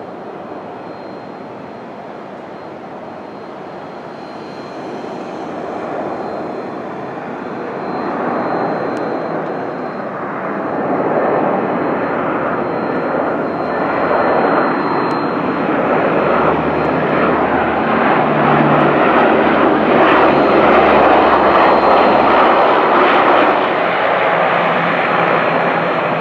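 Lockheed C-130 Hercules' four Allison T56 turboprop engines droning on the landing approach. The sound grows steadily louder as the aircraft closes in and touches down, is loudest about three-quarters of the way through, and eases a little near the end.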